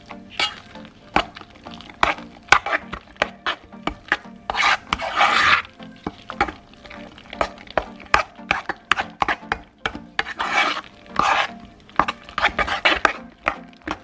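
A spoon stirring and mashing potatoes in a pot, with repeated clicks and scrapes of the spoon against the pot. Longer scraping passes come about five seconds in and again about eleven seconds in. Faint background music plays underneath.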